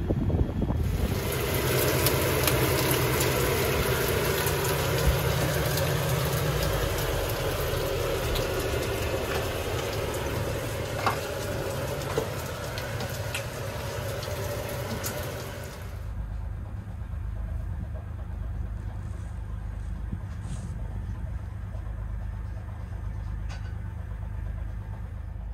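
The yacht's engine running steadily under way. For the first part a broad rush of water and wind sits over it. About two-thirds of the way in the rush cuts off suddenly and only the low, steady engine drone remains.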